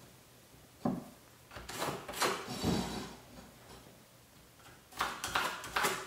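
A speed square being handled against drywall while a pencil line is drawn along it. There is a sharp knock about a second in, then a few light scrapes and taps, and more handling noise near the end.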